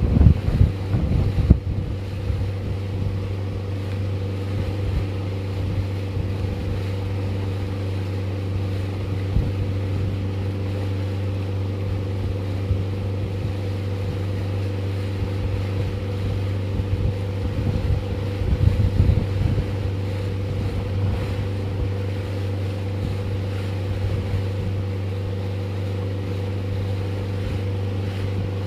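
Motorboat engine running at a steady drone, with wind buffeting the microphone in the first couple of seconds and again about eighteen seconds in.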